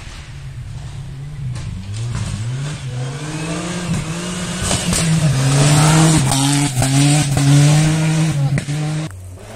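Rally car at full throttle on a gravel stage, approaching and passing close. The engine revs up through several gear changes, its pitch climbing and dropping back with each upshift, and grows louder to a peak as the car goes by. The sound cuts off abruptly near the end.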